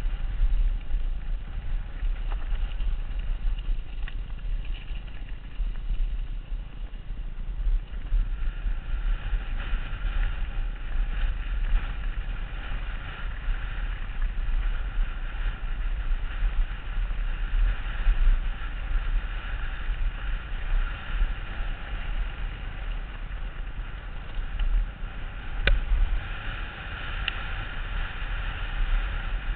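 Wind buffeting the microphone of a helmet-mounted camera, with the rushing and rattling of a downhill mountain bike's tyres over a loose gravel track. A hiss in the higher range grows louder after the first several seconds, and there is one sharp knock near the end.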